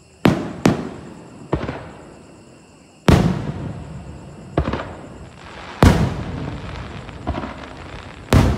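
Aerial firework shells bursting overhead: a series of about eight sharp bangs at uneven intervals, each dying away in a long echoing rumble, the loudest about three seconds in, about six seconds in and near the end.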